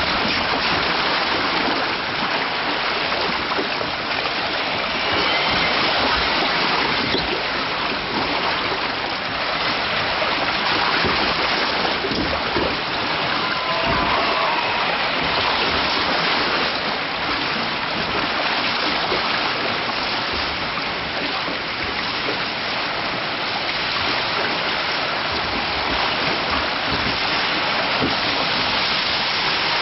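Water rushing steadily through a log flume trough, heard from a boat riding the channel.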